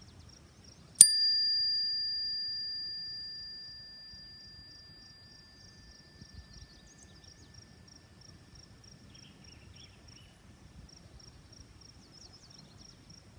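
A chime struck once about a second in, ringing with a clear high tone over a lower one and slowly fading away over several seconds. An insect chirps steadily at a high pitch in the background.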